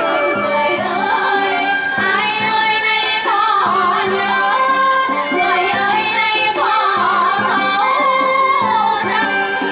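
Female singers performing a Vietnamese folk song into microphones, the voice gliding and ornamented, with live traditional Vietnamese instruments accompanying.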